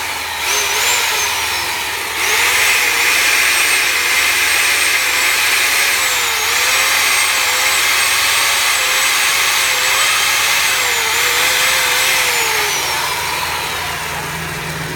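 Electric chainsaw starting with a rising whine, then cutting wood from about two seconds in, its motor pitch dipping several times under load. Near the end it winds down with a falling whine.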